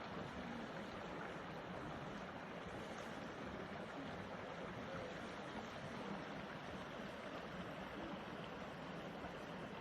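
Faint, steady rushing noise of snowstorm wind.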